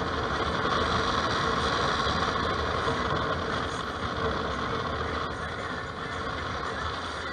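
Bumoto Regnum maxi-scooter being ridden: a steady rush of air and road noise, with the engine running underneath it and no sudden events.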